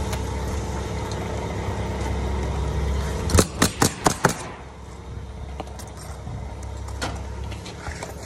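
Pneumatic roofing nailer firing about five shots in quick succession, a sharp clack each, into asphalt shingles. Under it a steady motor hum, which drops away just after the shots.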